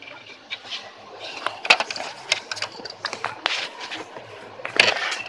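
Irregular clicks, knocks and short rattling bursts from inside the open HP DeskJet GT 5810 printer, around its paper-feed rollers and gears.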